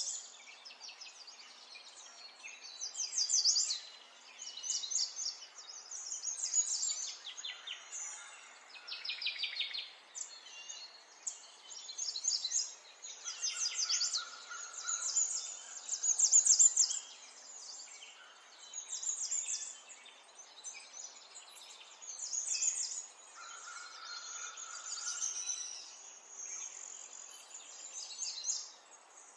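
Songbirds chirping and singing in fast, high-pitched trills that repeat every second or two, with a few short held whistled notes in between.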